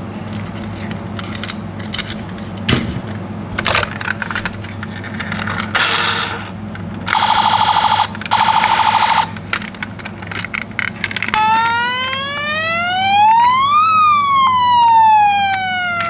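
Toy ambulance's electronic siren: one slow wail that rises and then falls, starting about two-thirds of the way through. Before it come two short buzzy electronic tones, and clicks and knocks from toy cars being handled.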